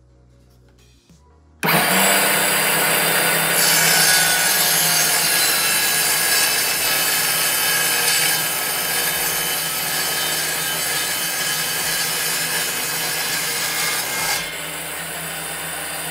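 Table saw driven by a 5-1/2 in circular saw motor switching on abruptly and running loud while its blade crosscuts a piece of plywood fed with the miter gauge. The sound eases a little near the end as the wood clears the blade.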